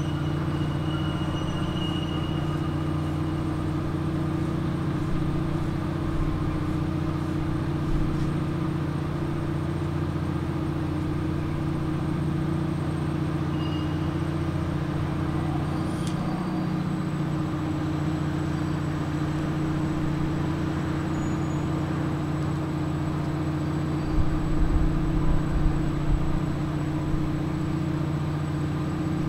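Steady low machinery drone, a constant hum made of several even low tones with a faint hiss above. A few short low rumbles come near the end.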